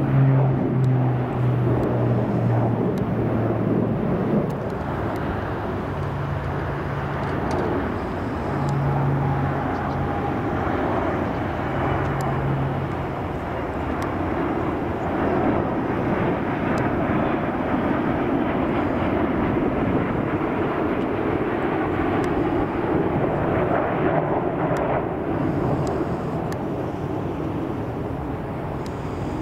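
Air tankers flying low overhead. For the first half there is the twin-turboprop drone of a CalFire S-2T Tracker, with a low propeller hum that comes and goes. About halfway through comes the steadier rush of an MD-87 jet air tanker's twin turbofan engines.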